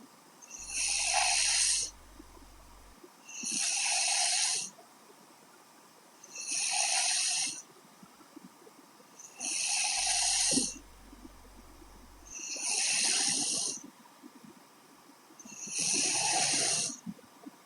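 A young woman snoring in her sleep: six breathy snores in a slow, steady rhythm, about one every three seconds, each lasting around a second and a half.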